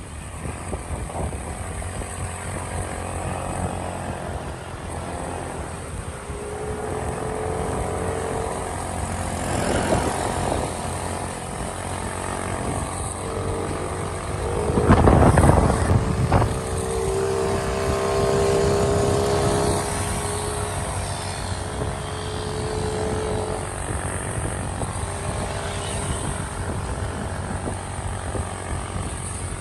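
Steady wind rush and road noise from riding a motor scooter, with the scooter engine's drone underneath; the rush swells louder about halfway through.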